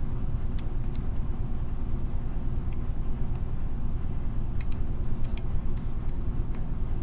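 Light metallic clicks and ticks from a lock pick working the pins of a pin-tumbler lock, scattered irregularly, some in quick pairs, over a steady low rumble.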